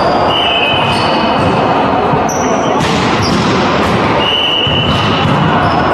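Echoing sports-hall din during a volleyball game: several short high squeaks lasting about a second each, a few sharp ball hits, and players' voices.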